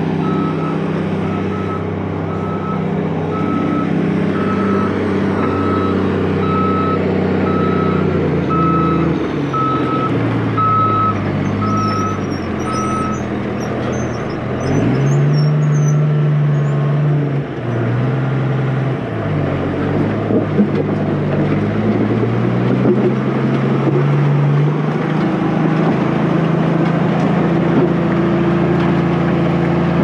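Caterpillar 140H motor grader's diesel engine running close by under load, its pitch rising and falling as it is throttled up and down. A reversing alarm beeps about once a second until about halfway through.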